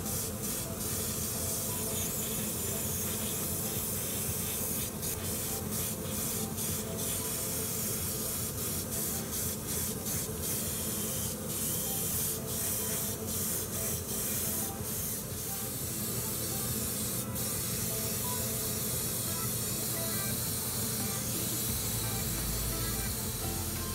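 Airbrush spraying paint onto small model parts: a steady hiss that drops out briefly many times, mostly in the first two-thirds. Background music plays underneath.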